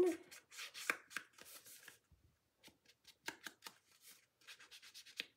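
A sponge dauber dabbing ink onto cardstock: irregular clusters of quick, soft pats and rubs with short pauses between them.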